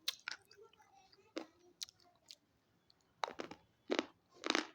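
A crunchy stick being bitten and chewed close to the microphone: a run of sharp, irregular crunches, loudest and most frequent in the last second and a half.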